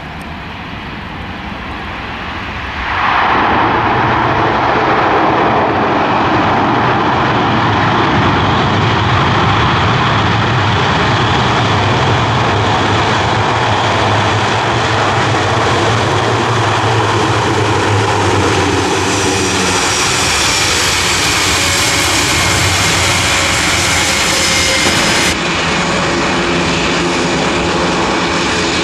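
Four-engine turboprop military transport aircraft running at high power, a loud steady roar with a low propeller drone. It rises sharply a few seconds in. A higher turbine whine joins near the end.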